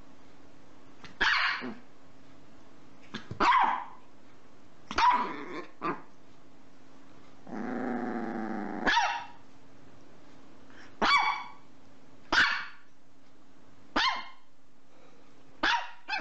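Small Chihuahua barking in short, sharp, high yaps, about eight of them spaced a second or two apart. Around the middle, a low growl lasts about a second and a half and breaks into a bark.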